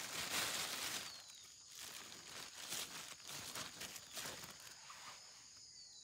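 Plastic bag rustling as a string net is pulled out of it by hand, loudest in the first second, with a faint steady high-pitched insect drone underneath.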